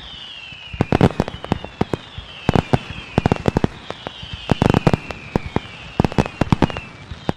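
Fireworks-like sound: clusters of sharp cracks and pops, with a whistle that falls in pitch about five times in a row.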